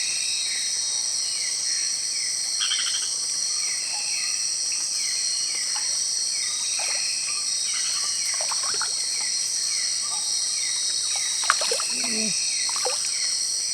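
Night-time tropical insect chorus: a steady high-pitched drone of crickets and other insects, with a short falling chirp repeating about one and a half times a second and a few faint clicks.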